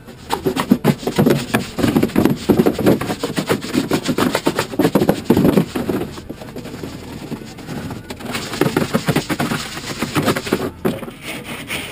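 Rapid back-and-forth scrubbing of the inside of a cut-down plastic IBC tote with cleanser, a loud, close, uneven run of strokes that eases a little after about six seconds.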